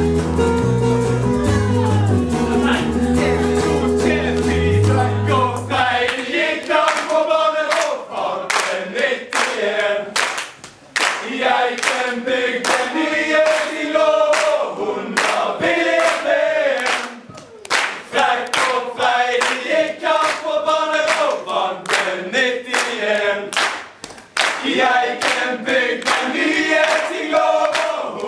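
A group of men singing together in chorus, backed by guitar and bass guitar for the first six seconds or so; then the instruments drop out and the singing goes on unaccompanied, with many sharp claps.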